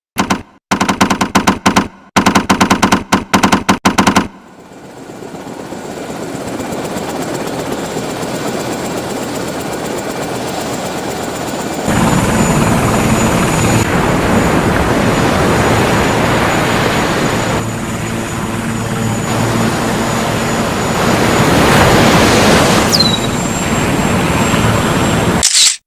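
Multirotor drone's motors and propellers: a few seconds of rapid stuttering pulses, then a steady whir with a thin high whine that grows louder about 12 seconds in.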